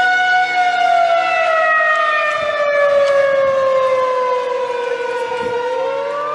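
Outdoor civil-defense warning siren sounding a single wailing tone. It holds steady, then slowly winds down in pitch over about five seconds, and starts to climb again just before the end.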